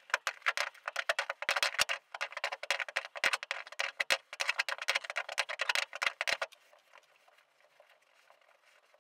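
Sped-up time-lapse sound of a seized through-hull fitting being turned out with a pipe wrench: a fast, dense clatter of clicks and knocks that stops about six and a half seconds in, leaving a faint hiss.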